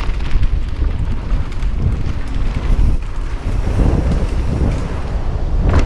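Wind buffeting an action camera's microphone while a mountain bike rolls down a trail: a steady low rushing, with one sharp knock near the end.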